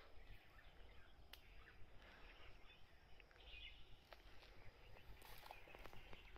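Faint outdoor ambience with scattered short bird chirps and a few light clicks over a low steady rumble.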